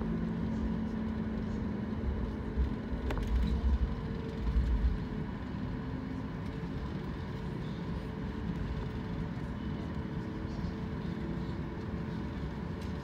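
Cabin noise of a Boeing 737-8 MAX taxiing slowly: a steady rumble with the engines at idle, and a few low bumps between about two and five seconds in.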